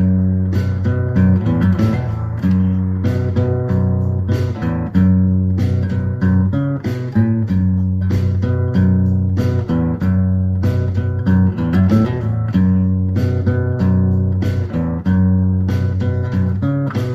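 Background music led by guitar, with plucked and strummed notes over a steady bass and a regular beat.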